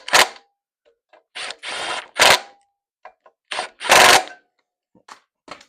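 Power driver, most likely an impact driver, running in about half a dozen short bursts with a rapid hammering rattle as it snugs bolts down; the loudest bursts come about two and four seconds in.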